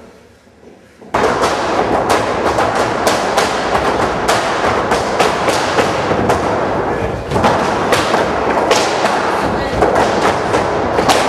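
Dancers' feet stamping and landing on a floor, a dense run of loud thumps that starts abruptly about a second in, with music underneath.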